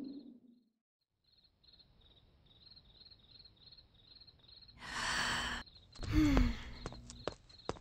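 Crickets chirping steadily, about three chirps a second. A loud sigh comes about five seconds in, and just after it a short low sound that falls in pitch.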